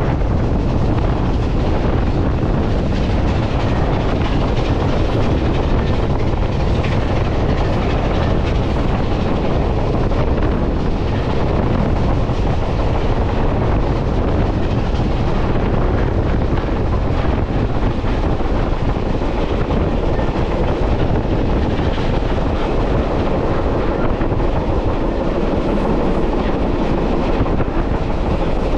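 Steady rumble and rattle of a moving passenger train, its cars rolling along the rails.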